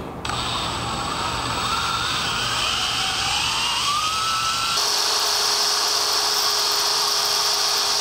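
Makita 18V cordless drill running, its bit boring through a thin metal strike plate to cut out a small square. The motor's whine rises in pitch for a few seconds, then about halfway through changes suddenly to a steadier, higher-pitched grind.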